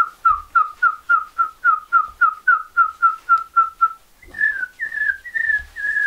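A man whistling through pursed lips to imitate a forest bird call. It starts as a quick run of short, evenly spaced notes, each dropping slightly in pitch, at about four a second. A little after four seconds in, it changes to a few longer, higher, wavering whistles.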